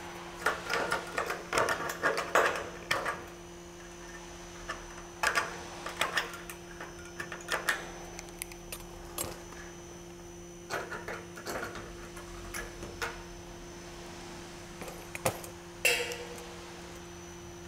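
Bursts of metallic clicks, clinks and scrapes as a length of Colorbond steel fascia is handled and worked on a timber frame, coming in several short clusters with pauses between. A steady low electrical hum runs underneath.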